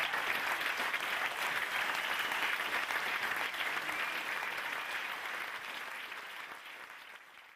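Theatre audience applauding, a steady patter of many hands clapping that fades out over the last couple of seconds.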